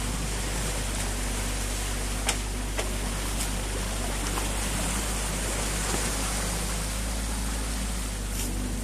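Muddy stream water rushing steadily through a freshly breached beaver dam, over the low steady running of a mini excavator's engine. A few short sharp knocks stand out, the loudest a little over two seconds in.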